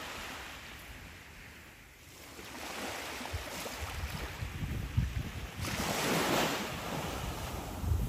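Small waves washing onto a sandy beach, with one louder wash a little past the middle, while gusts of wind buffet the microphone.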